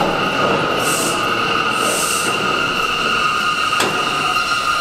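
Bombardier R179 subway train pulling into the station and slowing to a stop, its running rumble overlaid by a steady high-pitched squeal. Soft hissing puffs come about once a second at first, and a single sharp click sounds near the end.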